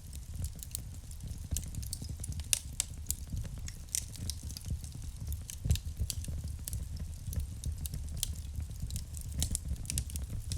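Wood fire burning in a fireplace, crackling with many irregular sharp pops and snaps over a low steady rumble of the flames, one pop louder than the rest about halfway through.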